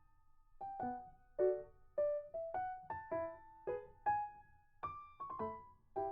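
Background music: a gentle piano or electric-piano melody in separate struck notes, about two a second.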